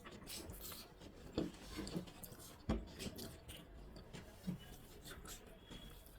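Quiet eating sounds: soft rubbing and small clicks of rice and mashes being handled on a plate. There are two sharper knocks, about one and a half seconds in and just under three seconds in.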